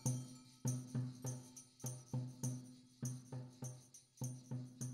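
Closing music: a steady percussion rhythm of about three beats a second, each beat a low pitched note with a bright jingle on top.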